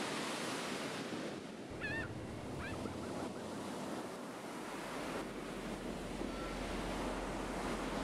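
Ocean surf washing steadily, fading in at the start, with two short, wavering bird calls about two seconds in.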